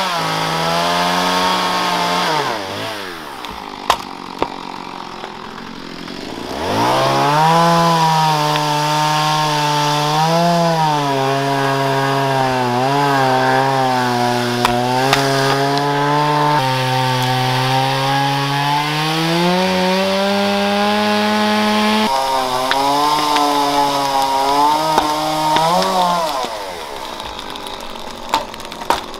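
Two-stroke chainsaw running at high revs with a wavering engine note. It drops toward idle about three seconds in, revs back up about seven seconds in, and falls away again near the end. Sharp knocks from axes splitting wood come twice about four seconds in and twice near the end.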